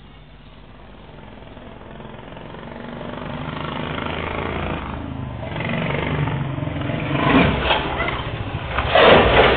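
A motor vehicle approaching on a road, its noise swelling steadily over several seconds, with two loud rough surges near the end.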